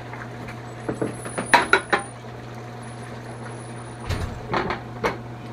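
Ladle clinking against the pot and a ceramic soup bowl in a few sharp knocks while soup is dished out, then a glass pot lid clattering onto the metal pot about four seconds in, over a steady low hum.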